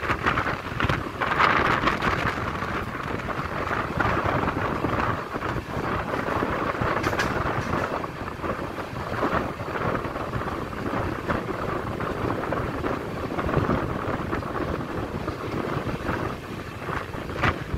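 Train running on the line: a steady rumble and rattle from the wheels on the track, with wind buffeting the microphone.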